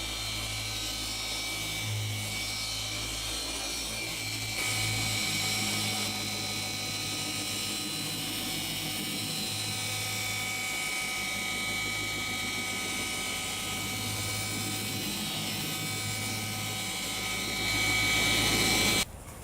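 Electric paint polisher motor running steadily with a whine, rising in level near the end and then cutting off abruptly.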